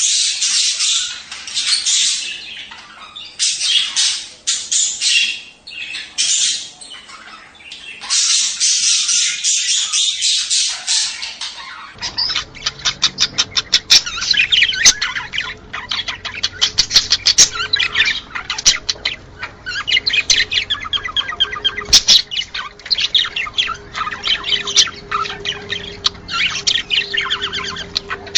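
Budgerigars chattering and warbling in a dense run of rapid chirps and squawks. About twelve seconds in the recording changes and a faint steady hum comes in under the chatter.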